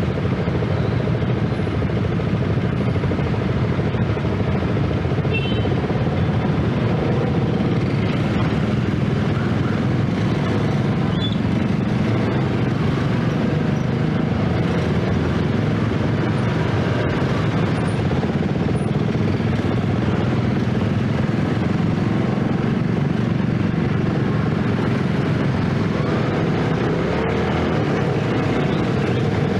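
Yamaha 115 cc underbone motorcycle's small single-cylinder four-stroke engine running steadily, mixed with the engines of the surrounding motorcycle traffic.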